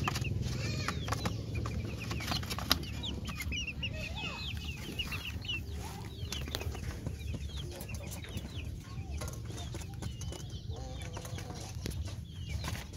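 Young chickens peeping and clucking: many short, high chirps, busiest in the first half and thinning later, with scattered sharp clicks and one loud knock a few seconds in.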